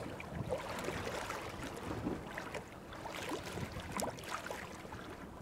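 Water splashing and lapping at a boat's hull as a chinook salmon held by hand in the water is released, a series of small irregular splashes over a steady low background.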